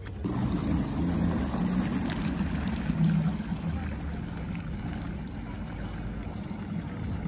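Yamaha jet ski's engine running steadily as it pulls away across the water, its sound slowly easing off as it moves off.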